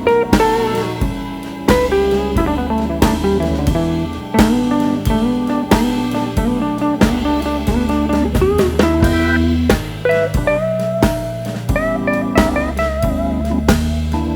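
Background music: blues guitar with bending notes over bass and a steady drum-kit beat.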